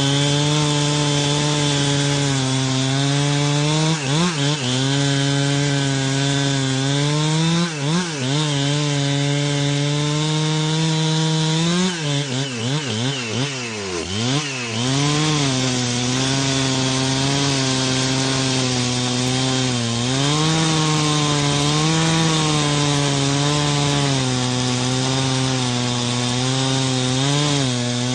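Chainsaw running at high revs, cutting through wood. Its pitch sags and recovers a few times as the chain bogs down or is eased in the cut, most unsettled about halfway through.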